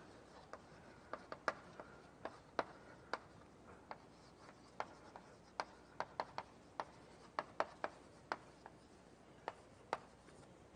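Writing on a board during a lecture: a stick of chalk or a pen tapping and scraping against the board, giving sharp, irregular clicks about two a second.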